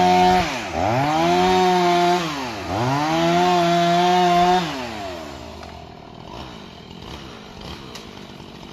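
Chainsaw running at full throttle while cutting a dead tree. The engine note drops and revs back up twice, then the throttle is let off about five seconds in and the sound falls away.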